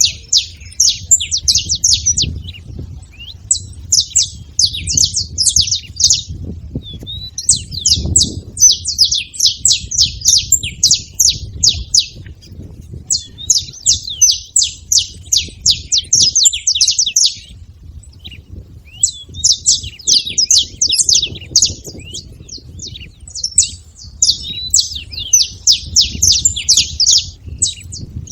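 Saffron finch song: bouts of rapid, high chirping notes a few seconds long, repeated with short pauses, over a low rumble.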